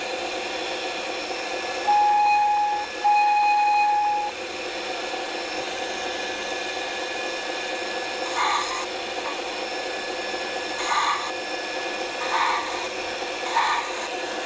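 Two long single-pitch whistle toots, about a second each and close together, over a steady mechanical hum; later, several short hissing bursts.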